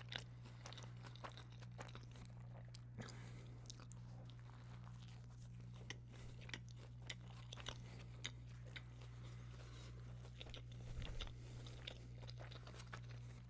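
Close-miked chewing of a crispy chicken snack wrap with buffalo ranch sauce: soft crunches and wet mouth clicks, scattered through, over a steady low hum.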